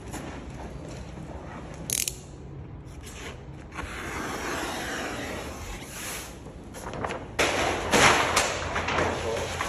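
Rustling and crackling of a large sheet of car-wrap material being handled, loudest near the end as it is shaken out and flapped, with a sharp click about two seconds in.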